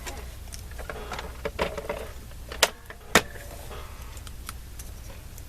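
Paper craft supplies being handled on a desk: rustling and small knocks, with two sharp clicks about half a second apart near the middle.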